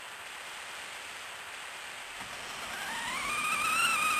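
Cartoon sound effects: a flamethrower's steady rushing flame, and from about three seconds in a pressure cooker's steam whistle rising in pitch and growing louder over it as the cooker is overheated.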